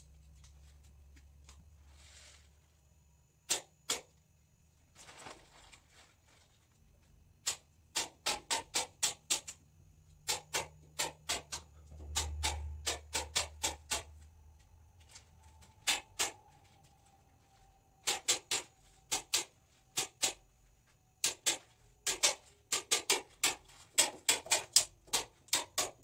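Hand staple gun snapping in quick runs of several shots, fastening plastic sheeting to a wooden frame, busiest near the end. Plastic sheeting rustles in between.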